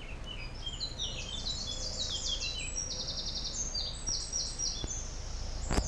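A songbird singing a long, fast song of trilled phrases that jump between pitches, over a steady low rumble. A sharp click just before the end.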